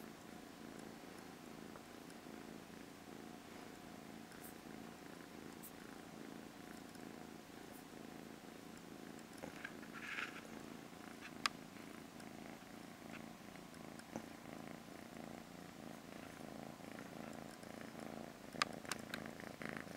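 British shorthair cat purring, a soft steady rumble. A short rustle about halfway and a few brief clicks, mostly near the end, sound over it.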